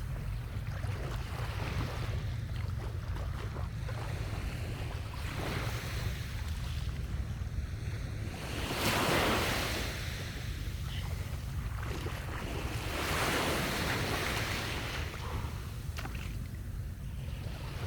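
Sea waves washing onto the beach, swelling and breaking about halfway through and again a few seconds later, over a steady low rumble of wind on the microphone.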